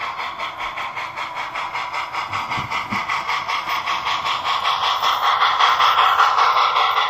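HO-scale MTH K4 Pacific model steam locomotive's TCS WowSound decoder playing a steady exhaust chuff through its onboard speaker, about five chuffs a second, as it pulls a long, heavy train of loaded coal cars at slow speed. The chuffing grows louder as the locomotive passes close by, about five seconds in.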